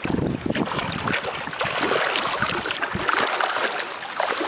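Creek water splashing as a dog paddles and wades out of the shallows, a dense run of irregular splashes.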